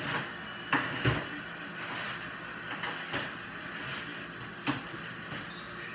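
Scattered knocks and clatters of things being handled, set down or shut, the loudest two close together about a second in.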